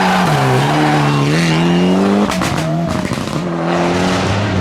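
Rally car engine under hard acceleration, its note climbing steadily, then breaking off about two seconds in with a few short crackles at the lift or gear change before pulling again at a steadier pitch. Some tyre squeal runs alongside.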